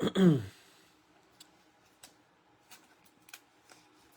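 A man's brief falling-pitch voice sound, then faint irregular clicks, about one every half-second to second, from trading cards and their plastic holders being handled.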